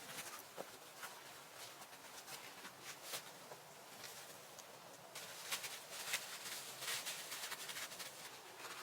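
Faint scattered clicks, crackles and rustling, busier and a little louder from about halfway through.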